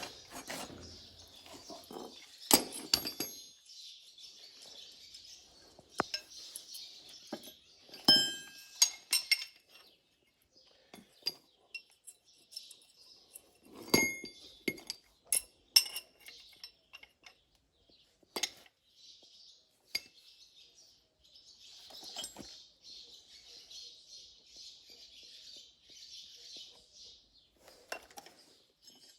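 Scattered metallic clinks and taps of steel pulley-puller arms and tools being handled as the puller's arms are swapped, with stretches of faint high hiss between.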